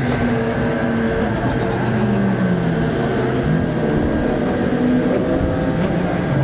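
Several GT3 race car engines running together, their pitches sliding up and down as they rev, with a faint steady whine above them.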